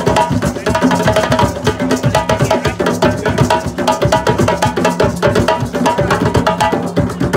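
An ensemble of hand drummers playing djembes and other rope-tuned hand drums together in a fast, dense, steady rhythm.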